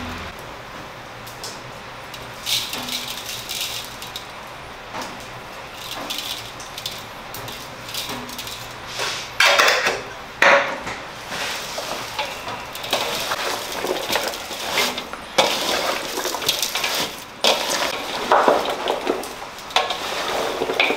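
Kitchen handling noises: clinks and taps of a metal spice shaker and dishes around a large steel bowl, with scattered knocks and rustles and a few louder scrapes about halfway through.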